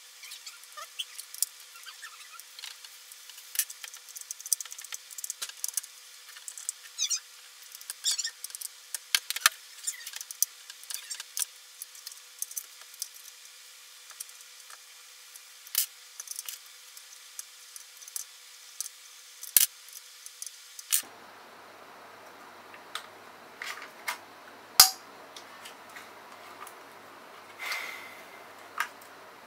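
Scattered small sharp clicks and rattles of hard plastic as a COM2003 steering column switch module is handled and put back together. Near the end the stalk switches click through their positions.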